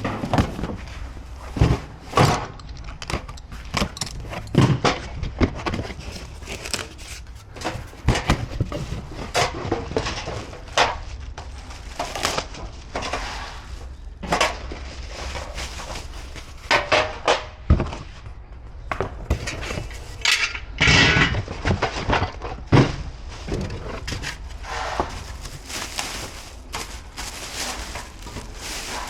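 Gas grill parts being handled during assembly: irregular knocks and clatters of sheet metal and other components being picked up, set down and fitted, with a cluster of louder knocks a little past the middle.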